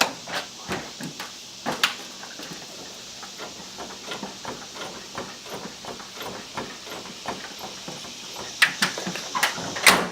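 Toyota Tacoma pickup bouncing on blown-out shocks, with irregular knocks and clunks from the body and suspension. The biggest clunks come at the start and in a cluster near the end. The sound is a sign that the shocks no longer damp the truck's movement.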